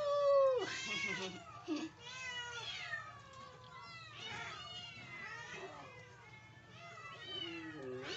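Several cats meowing over one another in a steady run of overlapping calls that rise and fall in pitch; the loudest call comes right at the start.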